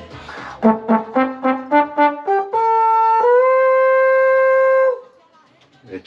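Trombone playing a quick run of about seven short notes climbing in pitch, then one long held note that steps up a little partway through and stops cleanly about five seconds in.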